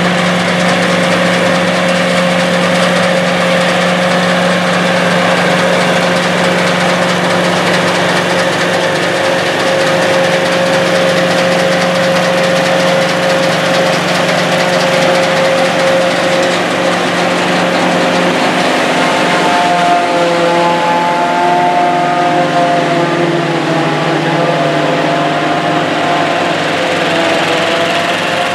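Sperry-New Holland 1880 Crop Cruiser self-propelled forage harvester working while chopping standing corn: a loud, steady engine and cutterhead drone with a constant hum. The hum shifts to a different set of tones about two-thirds of the way through.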